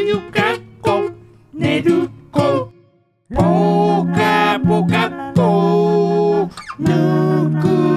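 A gentle children's-style song: a voice singing over plucked acoustic strings, with a brief pause about three seconds in and then long held notes.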